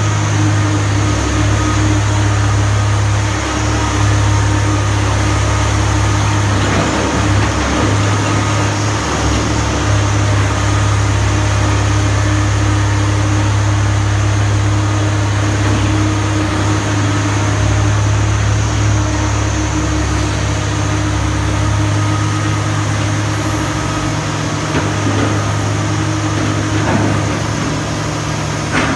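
Komatsu PC300LC excavator's diesel engine running steadily, a loud continuous low hum.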